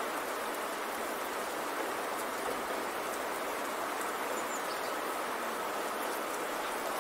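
Steady, even hiss of rain-like rushing noise that does not change. It is the masking layer of a subliminal affirmation track, with the affirmations themselves not heard as words.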